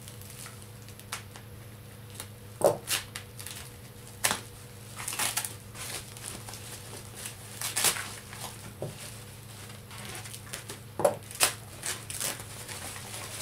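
Plastic mailer bag crinkling and rustling in short, irregular bursts as it is handled and pulled open, with a few sharper crackles.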